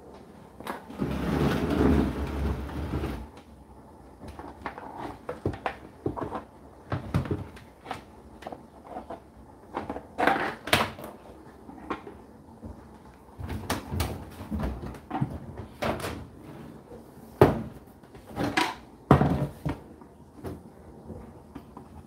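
Clicks and knocks from handling an Indesit condenser tumble dryer, including its plastic front door being pulled open. A burst of rustling noise lasting about two seconds comes about a second in.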